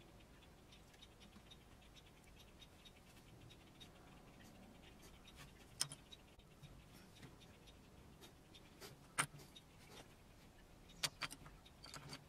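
Quiet room with faint scattered ticks and a few sharp clicks and taps in the second half, the loudest about three-quarters of the way through, from small clay-sculpting tools being handled.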